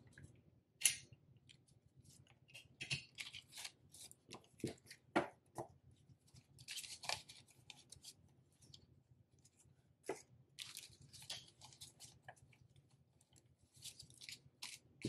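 Paper banknotes being handled and counted by hand: an irregular run of short, crisp rustles and flicks of the bills, with crinkling of a clear plastic binder pouch as the notes go into it.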